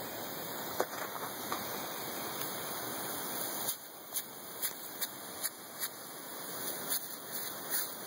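Lawn sprinkler's jet of water hissing steadily. About four seconds in the hiss drops a little and a run of short sharp ticks begins, about two a second.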